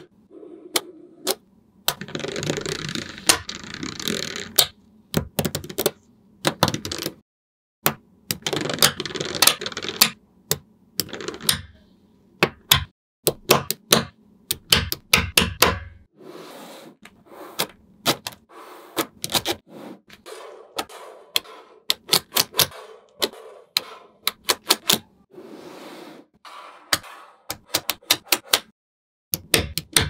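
Small magnetic balls clicking sharply as rows and blocks of them snap together and are pressed into place. Longer stretches of dense clattering come between the separate clicks.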